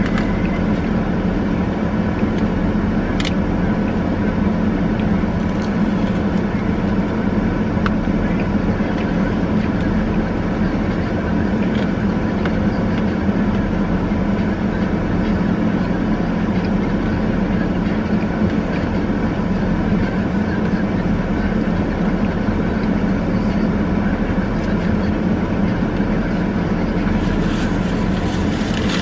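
A steady, loud mechanical drone with a strong low hum that never changes, and a few faint clicks over it.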